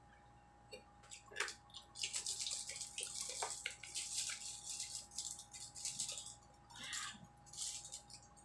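Paper and plastic food packaging rustling and crinkling in irregular bursts, with a few small clicks, starting about two seconds in, over a faint steady hum.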